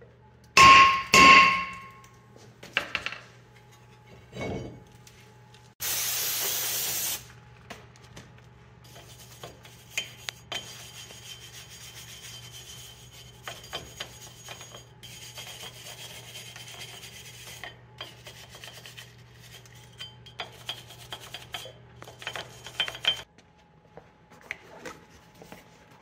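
Two hard mallet blows on a rusted front brake rotor, each ringing the metal, followed by a few lighter knocks as the seized rotor is freed from the hub. After that comes a long stretch of steady scraping, a hand wire brush scrubbing rust off the bare hub face, which stops a few seconds before the end.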